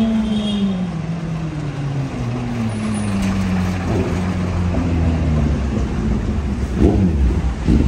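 A bus engine passing close by, its note falling as it goes past, followed by a car driving past.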